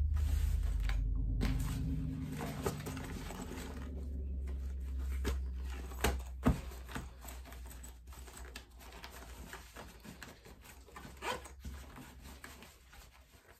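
Iridescent vinyl and cork panels of a bag being handled, smoothed and pressed together by hand, with scattered rustles and light knocks. A low rumble runs under the first six seconds or so.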